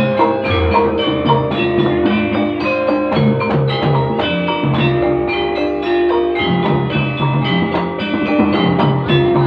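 Javanese gamelan music for jaranan dance: tuned metal percussion playing a fast, busy rhythmic melody over steady drumming.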